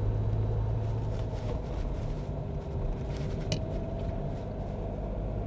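Steady low hum of engine and road noise inside a Mahindra Scorpio N's cabin while it is driven along the road.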